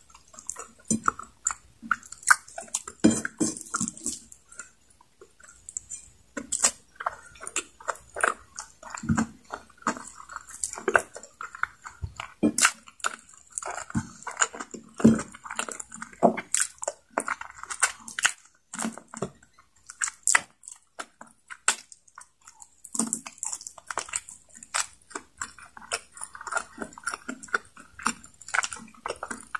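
Close-miked chewing of adobo chicken neck and rice, with many short wet mouth clicks and smacks coming at irregular intervals.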